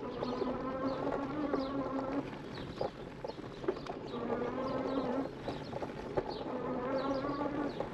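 E-bike riding along a dirt singletrack: a constant rumble with scattered knocks and rattles from the trail, and a low buzzing hum that comes and goes in three stretches of one to two seconds.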